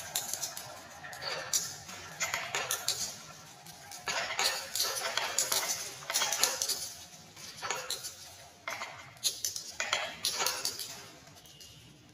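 Glass marbles spinning down wooden spiral funnels and rolling along segmented plastic tracks, clicking and clinking against one another as they bunch up at the track ends. The clicks come in quick clusters and thin out near the end.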